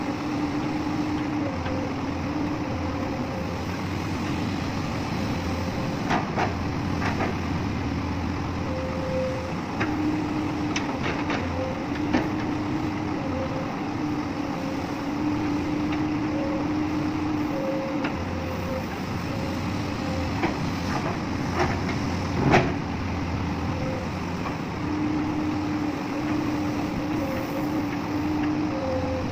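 Magnetic excavator working: its engine runs steadily, with a hum that swells and fades every few seconds, and a few short sharp clanks of metal.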